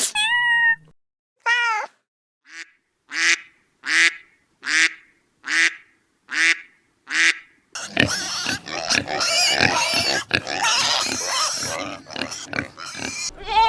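Animal calls. First comes a run of about eight short, evenly spaced pitched calls, a little under a second apart. Then, from about eight seconds in, several seconds of dense, noisy overlapping calls.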